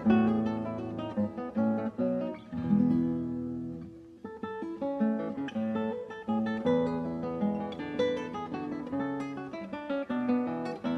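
Background music: acoustic guitar picking and strumming.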